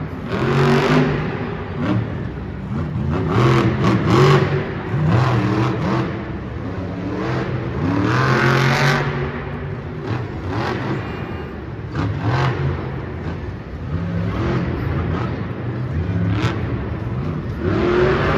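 Monster truck's supercharged V8 engine revving hard in repeated surges, its pitch climbing and dropping again and again as the truck drives over the dirt jumps.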